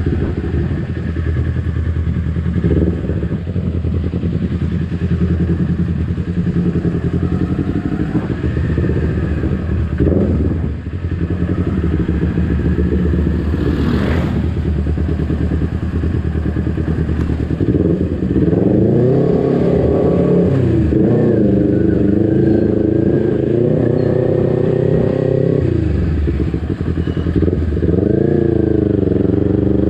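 Kawasaki Ninja 250 FI's parallel-twin engine running as the bike is ridden, the revs rising and falling repeatedly. In the second half it runs at higher revs, its pitch climbing and dipping several times.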